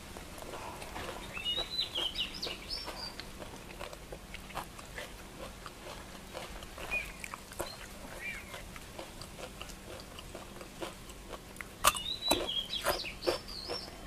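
Close chewing, lip smacks and mouth clicks of someone eating. Short high chirping calls come in two brief clusters, about a second and a half in and again near the end.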